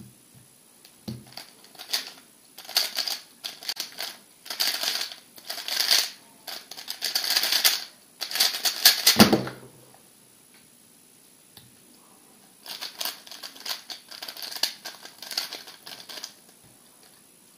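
Rapid plastic clicking of a MoYu RS3 M 2020 3x3 speedcube as its layers are turned fast by hand, in two spells of turning with a pause between them. A single thump comes about nine seconds in.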